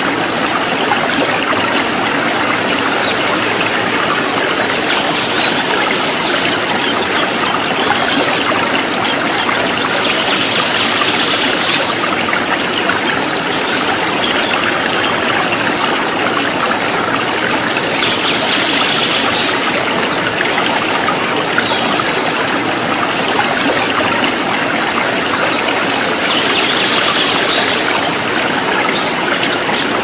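Rocky mountain stream rushing steadily over stones, an even, unbroken water noise.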